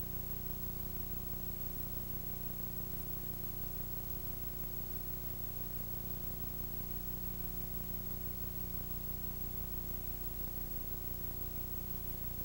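Steady hiss and hum from a multi-generation VHS copy's soundtrack, with no other sound.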